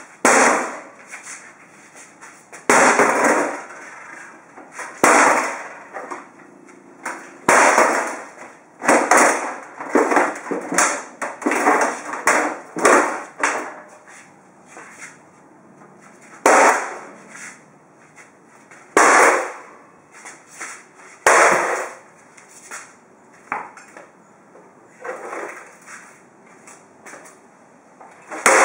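A pickaxe repeatedly smashing a Sony CDP-CE305 CD player's case: about a dozen crashing blows at uneven intervals, some in quick runs, each followed by a short rattle.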